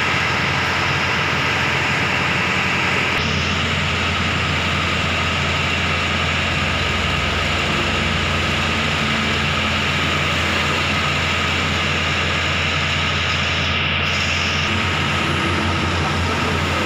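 Heavy diesel engine running steadily, its low hum growing stronger about three seconds in.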